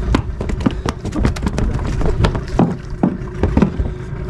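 Irregular knocks and taps on a small outrigger fishing boat as a multi-hook line with caught fish is hauled in and handled over the side, over a steady low rumble of wind and water.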